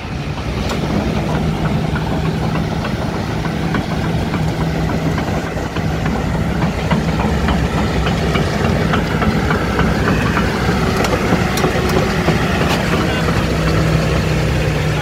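Hitachi ZX250LC-6 tracked excavator's Isuzu four-cylinder diesel engine running at a steady speed, with a few sharp metallic clicks in the second half.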